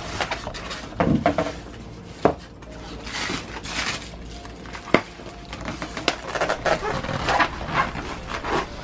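Styrofoam packing blocks being handled and pulled apart around a plastic-wrapped appliance: foam rubbing and knocking, with plastic wrap rustling and a few sharp knocks.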